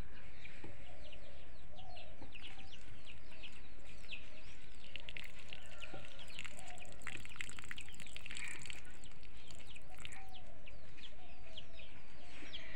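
Chickens clucking, over a dense run of quick, falling high chirps that carries on throughout.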